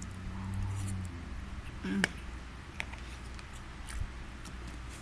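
Someone chewing a mouthful of rice and beans, with a low hummed 'mmm' over the first second. A fork clicks a few times against the plastic food container, the sharpest click about two seconds in.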